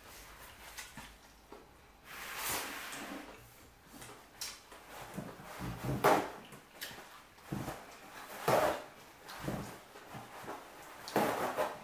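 Close-miked eating and table noises: instant fire noodles slurped and chewed, and paper towels pulled off a roll and torn, heard as a handful of short rustling noises a few seconds apart.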